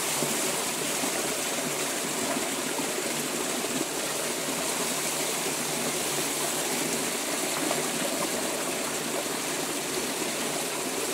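Running water pouring steadily and splashing onto a concrete floor and over a puppy held under the flow to be rinsed.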